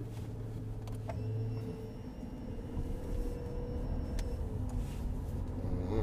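Maserati Levante SUV driving, its engine and road noise heard inside the cabin as a steady low hum that fades about two seconds in, with two short clicks, about a second in and about four seconds in.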